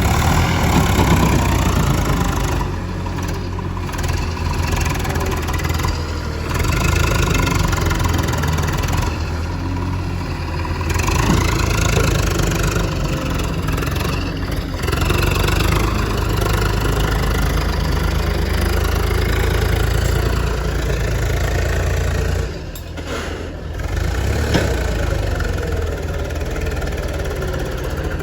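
Diesel engines of a backhoe loader and a tractor running at work, the revs rising and falling, with a brief drop in level about three-quarters of the way through.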